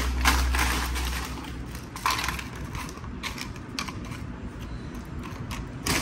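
Plastic bag of totopos (tortilla chips) crinkling as it is opened and handled, then crisp chips rustling and crackling as they are laid out on a plate, with a few sharp crackles.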